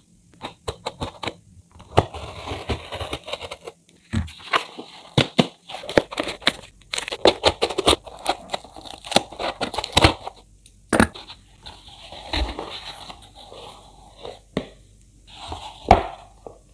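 A cardboard shipping box being torn open by hand: packing tape and cardboard tearing and rustling in several short stretches, with sharp clicks and knocks of the cardboard between them.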